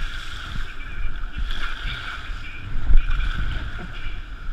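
River water rushing past a paddled boat, with wind buffeting the microphone as a low, uneven rumble and a heavier knock about three seconds in.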